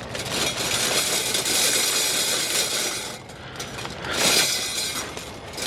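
Plastic trash bag rustling and crinkling as it is pulled open and torn, with a few light clinks from its contents. The noise runs for about three seconds, drops off briefly, and comes back about four seconds in.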